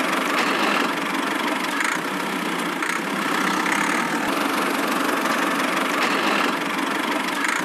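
Miniature DIY toy tractor running steadily: a continuous, even engine-like drone with no breaks.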